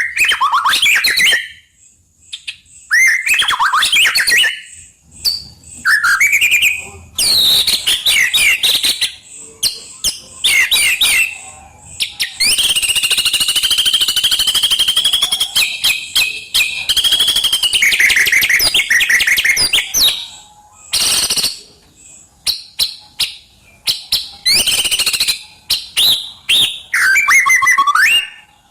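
White-rumped shama (murai batu) in full song: loud, varied phrases of whistles, rising and falling glides and fast trills, broken by short pauses, with one long unbroken run of song about midway.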